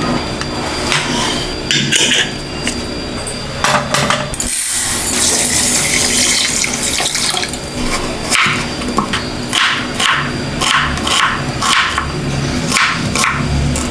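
Water running from a tap, rushing harder about four seconds in, with a run of short clinks and knocks through the second half.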